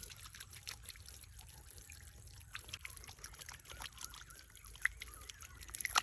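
Water trickling and dripping, with many irregular small ticks and a few louder ones near the end.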